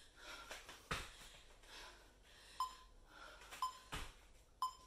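Three short timer beeps a second apart counting down the last seconds of an exercise interval, over heavy breathing and the dull thuds of bare feet landing from squat jumps on a foam mat.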